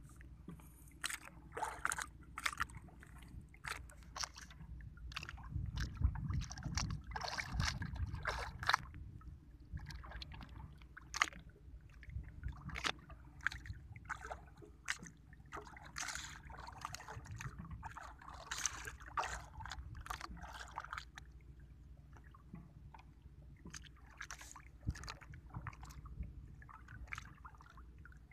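Water sloshing around a small boat at sea, with many irregular knocks and splashes over a steady low rumble.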